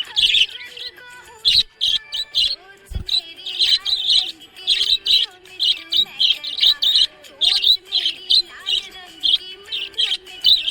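Budgies chirping, a quick run of short high chirps, two or three a second.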